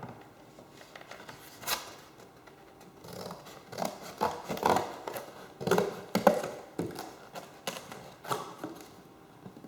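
Scissors cutting a piece of material in a series of irregular snips, with handling rustles between them, busiest in the middle.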